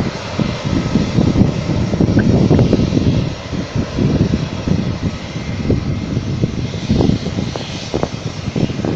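AirAsia twin-engine jet airliner taxiing and turning onto the runway, its engines a continuous low, uneven rumble at taxi power.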